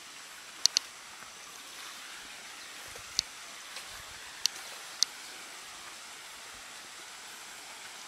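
Steady hiss of running water from a small cascade, with a handful of short sharp high clicks scattered through it.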